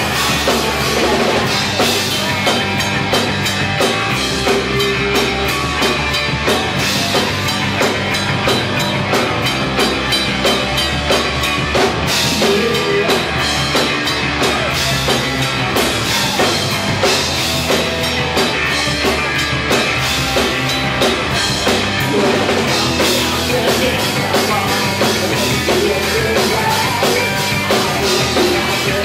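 Live rock band playing through a PA: electric guitars and bass over a drum kit keeping a steady beat.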